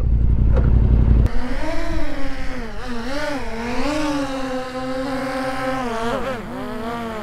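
A quadcopter drone's propellers whining close by, the pitch wavering up and down as the drone struggles to hold its altitude. A low engine rumble cuts off about a second in.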